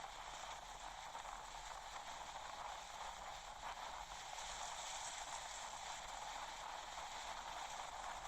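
Steady, faint hiss of noise with no distinct events or pitched sounds.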